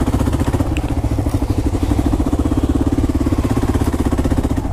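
Kawasaki KLR 650's single-cylinder four-stroke engine running steadily at a constant pitch, its exhaust pulsing in a fast, even beat.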